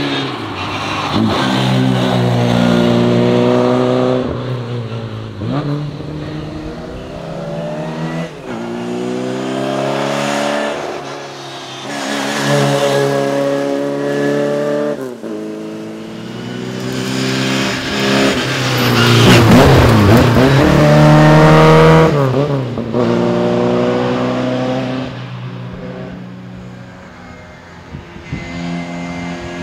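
Morris Mini rally car's four-cylinder engine driven hard through the gears. Its pitch climbs under acceleration and drops with each gear change and lift-off, over and over, with a louder, wavering stretch about twenty seconds in.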